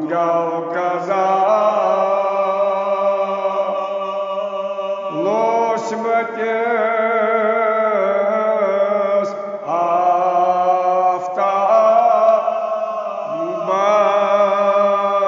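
A man chanting a Kashmiri marsiya (elegy) in long, wavering held phrases, with short breaks between phrases about five, nine and thirteen seconds in.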